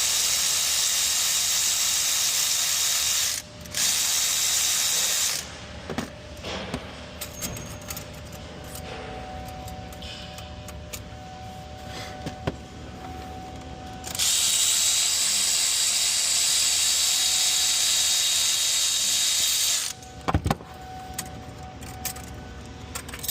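A cordless power tool runs in three long steady stretches while bolts are spun out: about three seconds, then two, then nearly six seconds partway through. Between the runs come the clicks and clatter of the tool and loose bolts.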